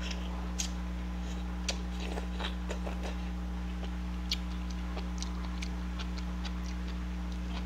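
Close-up eating sounds of a mukbang of spicy noodles: chewing and small mouth noises with scattered sharp clicks of utensils against the pan, the loudest click a little past halfway, over a steady low hum.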